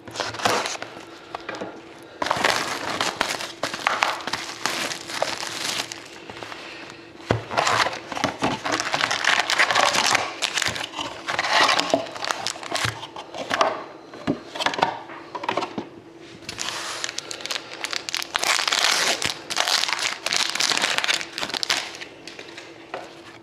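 Plastic wrap and foil card packs crinkling and rustling as a sealed hockey card box is slit open and its packs are handled and torn open, in an irregular run of crinkly bursts.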